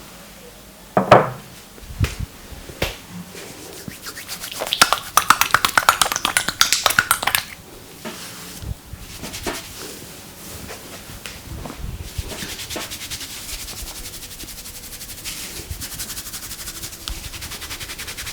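A barber's hands working on a person's head and hair in an Indian head massage. A sharp slap about a second in and a few single clicks lead into a fast run of crackling clicks and slaps from about four to seven seconds in, then a quieter, fast and even rubbing patter.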